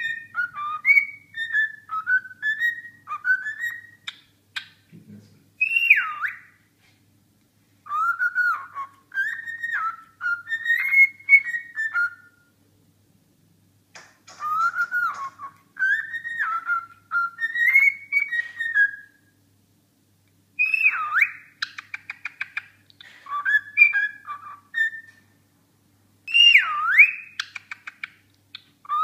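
Pet cockatiel whistling a song in short, repeated phrases of rising and falling notes, broken by brief pauses, with a loud high note that swoops down and back up three times.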